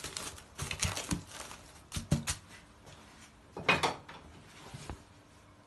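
Plastic cling film crinkling and rustling in short irregular bursts as it is pressed and smoothed down over a bowl of dough.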